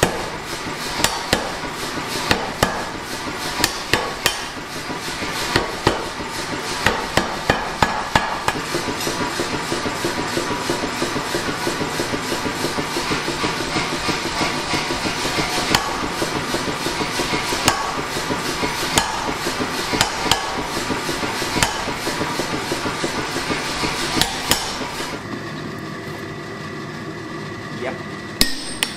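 Power hammer forging a red-hot block of forklift-tine steel: a long run of rapid, close-set metal blows, irregular at first and then fast and steady. Near the end the blows thin out to a few single strikes of a hand hammer on the anvil.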